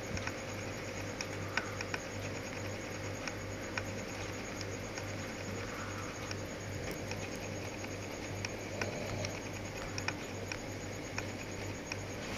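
Room tone: a steady low hum with scattered faint clicks and ticks.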